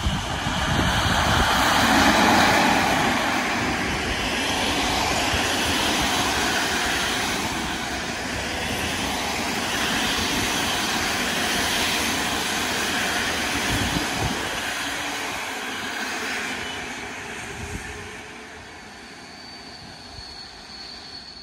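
Intercity passenger train hauled by an EU07 electric locomotive passing, a steady rush of wheel and rail noise. It is loudest about two seconds in and dies away over the last few seconds.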